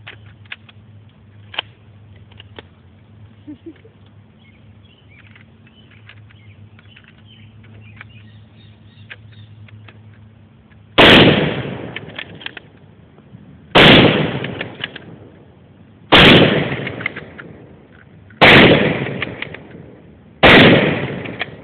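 Five rifle shots from Mosin-Nagant M-44 bolt-action carbines in 7.62x54R, coming about two to three seconds apart in the second half, each with a ringing echo that fades over about a second. Before them there is only a low steady hum and a few faint clicks.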